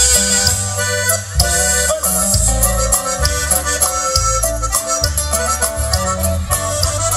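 Regional Mexican band playing: button accordion leading the melody over electric bass, guitar and a steady drum beat.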